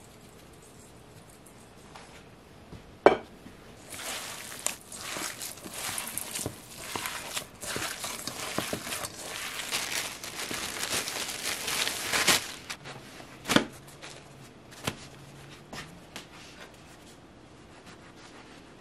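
Thin plastic bread bag crinkling and rustling for about eight seconds as hamburger buns are taken out of it, with a sharp knock just before and a few lighter knocks after.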